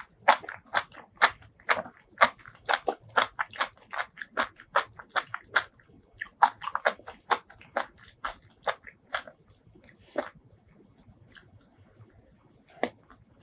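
Close-miked mouth chewing: a rapid run of crisp, crunchy bites, about three to four a second, that slows and thins out over the last few seconds.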